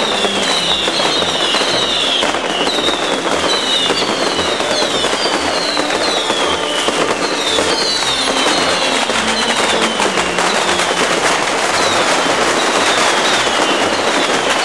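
Fireworks barrage: a dense, continuous crackle of bangs and firecrackers, with whistling fireworks going off one after another, each whistle falling in pitch.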